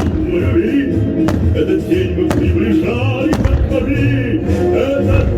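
Music playing loudly during a fireworks display, with firework bursts going off three times about a second apart, near the middle.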